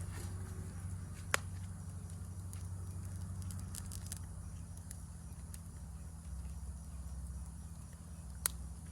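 Wood campfire burning with a steady low rumble and sparse sharp crackles, two of them loud pops about a second and a half in and near the end. A faint high insect chirring from the forest runs underneath.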